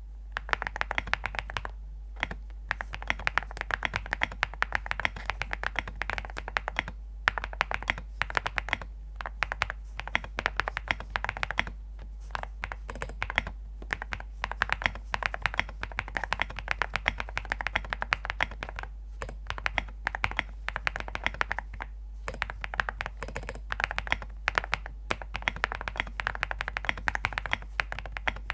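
Fast typing on a ZOOM65 mechanical keyboard with Graphite Gold linear switches, a foam-filled case and a polycarbonate plate: a steady stream of key clicks with a few brief pauses, a sound the uploader likens to small stones tapping.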